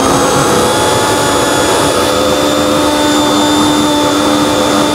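Electric mixer-grinder running at full speed, blending chopped wheatgrass and water in its tall jar: a loud, steady motor whine.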